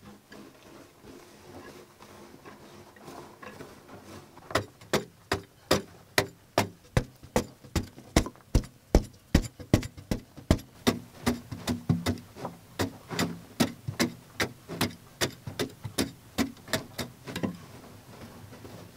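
A pick chopping into hard-packed earth in quick, regular strikes, about two or three a second, knocking soil loose. The strikes stop shortly before the end, leaving softer sounds of loose earth.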